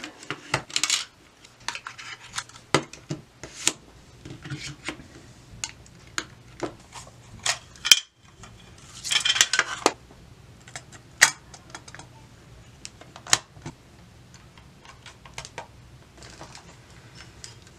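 Plastic clicks and rattles of a portable cassette player and a cassette tape case being handled: the player's cassette door worked open, the tape taken from its clear plastic case, and the player's buttons pressed. The clicks come one by one throughout, with a denser burst of rattling about halfway through.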